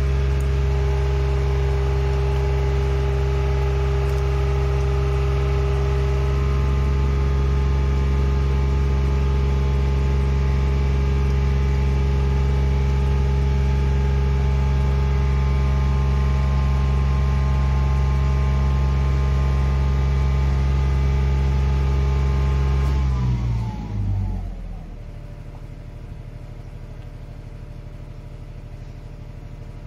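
Truck-mounted boom lift's engine running at raised speed to drive the boom's hydraulics as the basket is lowered, a steady drone. About 23 seconds in its pitch falls and it settles to a quieter idle.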